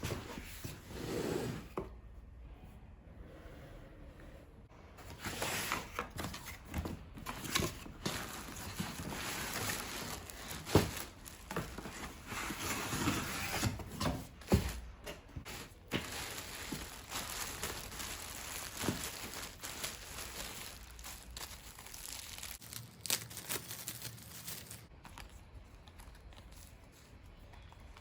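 Packaging being handled and opened: irregular crinkling and tearing, with scattered clicks and knocks, the sharpest about eleven seconds in.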